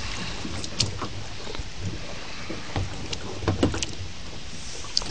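Kayak paddle strokes in a shallow creek: water splashing and dripping off the blade, over a steady wash of water noise. A few short, sharp knocks and clicks come through, about a second in, twice around three and a half seconds, and near the end.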